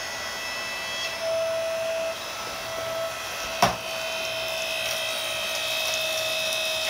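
Yardworks 6.5-ton electric hydraulic log splitter running under load, its motor and pump giving a steady whine as the ram presses a stack of electric motor stators against the wedge. A single sharp crack sounds about halfway through.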